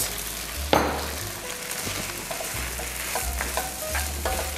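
Garlic fried rice sizzling in a hot pan as fish sauce is poured in and the rice is stirred with a spatula, with a single sharp knock a little under a second in.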